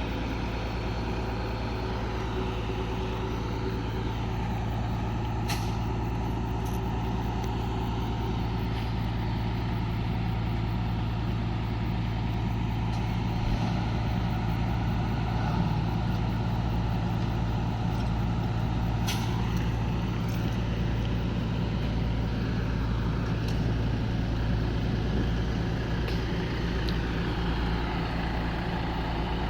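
Excavator diesel engine running steadily under load, with a couple of brief sharp sounds, one about five seconds in and one near the middle.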